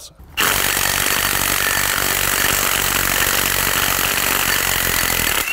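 Power tool running steadily on a long extension to spin a spark plug out of a cylinder head. It starts abruptly and cuts off suddenly about five seconds later.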